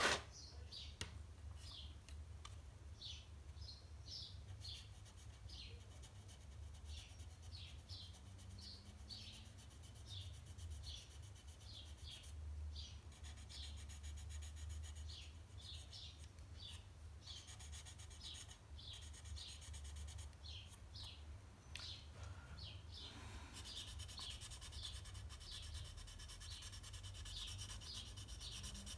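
Fine abrasive sanding a plastic model car body shell to remove its seam lines: faint short strokes, about two a second, pausing briefly twice, over a low steady hum.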